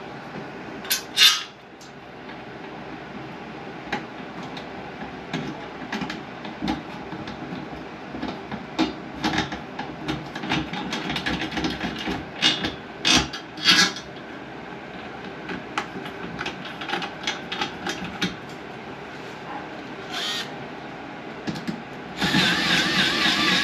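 Scattered knocks, clicks and clatter of hand work on a bathroom exhaust fan installation over a steady hum. Background music starts near the end.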